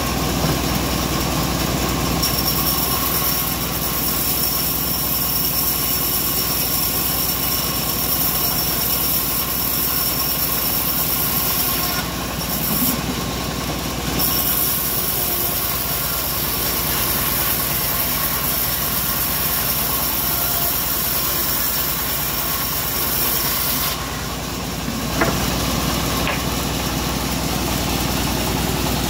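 Homemade bandsaw mill running steadily while its blade saws lengthwise through a mahogany plank. The high hiss dips briefly twice, and there is a single sharp click about 25 seconds in.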